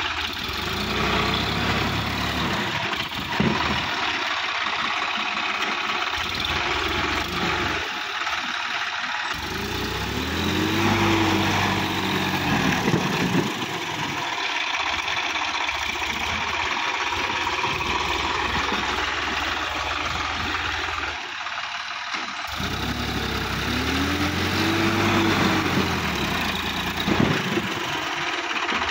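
Sonalika DI 50 RX tractor's diesel engine running under load as the tractor works through deep mud onto a bank. The revs rise and fall back twice, about ten seconds in and again about twenty-three seconds in.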